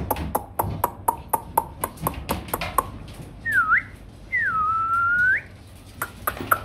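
A person whistling twice: a short whistle that dips and swoops back up, then a longer one that drops, slowly rises and flicks up at the end. Before the whistles there is a quick run of sharp clicks, about three a second, and the clicks start again near the end.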